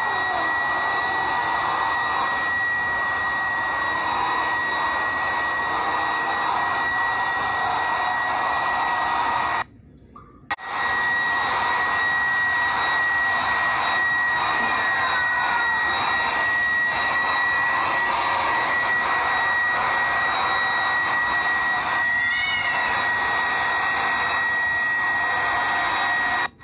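Handheld hair dryer running steadily while drying a cat's thick wet fur: airflow hiss with a steady high whine. It cuts out for about a second near the middle, then runs on.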